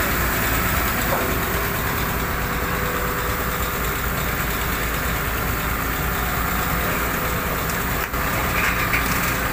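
Hydraulic excavator's diesel engine running steadily while it lifts a load.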